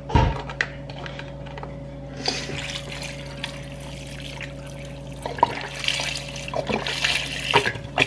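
Chicken broth pouring from a carton's spout into a slow cooker full of diced potatoes and corn, splashing onto the vegetables. A low thump at the start; the pouring begins about two seconds in.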